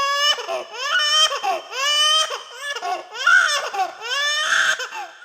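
A young child crying hard: a string of about five high-pitched wails, each bending up and then down, with short catching breaths between them.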